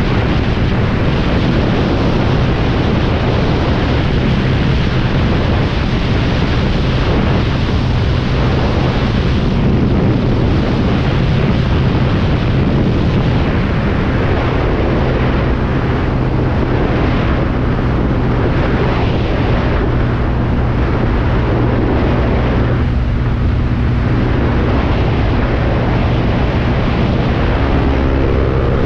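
Honda CB300's single-cylinder engine held at high revs flat out at about 130 km/h, buried under steady heavy wind noise on the microphone. Near the end a second motorcycle engine joins it as another bike comes alongside.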